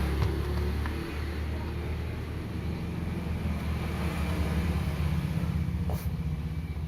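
Low rumble of a motor vehicle engine running, with a sharp click about six seconds in.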